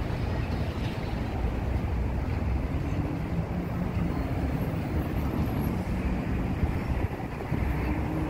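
Outdoor city ambience: wind rumbling on the microphone over a steady low hum of traffic, with faint engine tones coming and going.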